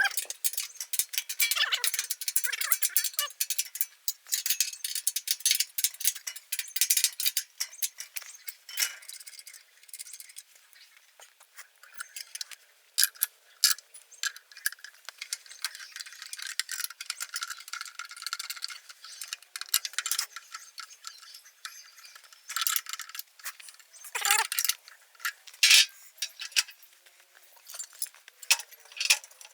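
Irregular metallic clinking and rattling, as of metal machine parts and hand tools being handled and fitted together. Dense at first, it thins out around the middle, and a few louder knocks come near the end.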